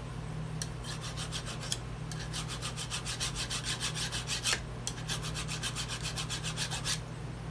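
Hand file rasping back and forth across the shaft of a Minn Kota trolling motor, dressing down the burrs where the prop pin goes through. The file goes in quick, even strokes that start about a second in and stop shortly before the end.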